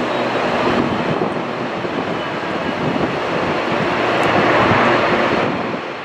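Twin turboprop engines of a Bombardier Dash 8 Q400 airliner climbing away overhead at go-around power, a steady propeller drone over a heavy noise wash. The sound swells to its loudest about four to five seconds in, then falls off near the end.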